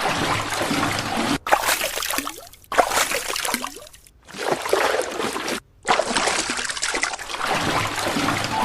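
Liquid trickling, splashing and gurgling in a series of short clips joined with abrupt cuts, about five in all.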